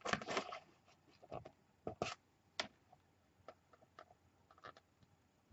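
Scattered small taps, clicks and rustles of paper and craft pieces being handled on a tabletop during fiddly journal decorating work, with a brief louder rustle at the start and a few sharper ticks in the middle.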